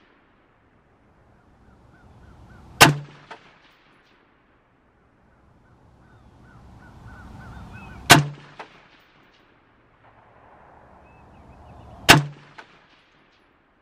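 Three rifle shots fired a few seconds apart, each a sharp loud crack followed about half a second later by a fainter second report.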